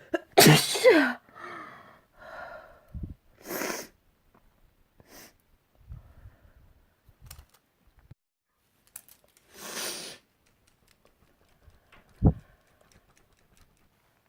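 A person sneezes loudly about half a second in, a voiced burst whose pitch falls. Softer breathy after-sounds follow, another sharp breath comes about ten seconds in, and a short low thump comes near the end.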